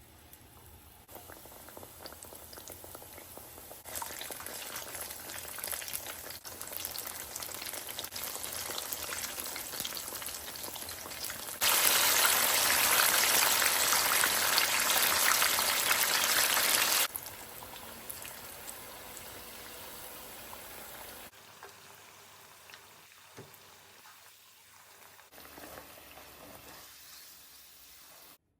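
Battered banana fritters frying in hot oil: a steady sizzle in several cut-together stretches that change level abruptly, loudest for about five seconds in the middle.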